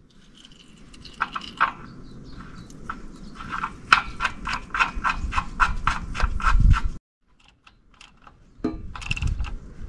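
Socket ratchet clicking in a quick even run, about four clicks a second, as the engine oil sump drain plug is screwed back in after draining; it stops suddenly about two-thirds of the way through.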